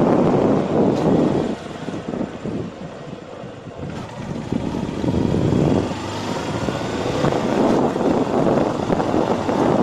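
Wind buffeting the microphone of a camera carried on a moving motorcycle, mixed with road and engine noise. The rumble eases about a second and a half in, then builds back up a few seconds later.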